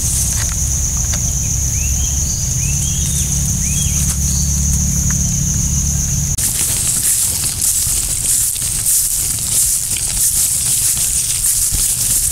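Outdoor bush ambience: a steady high insect drone with a few short rising bird chirps over a low rumble. About six seconds in it changes abruptly to rustling and crackling with scattered ticks as people walk through grass.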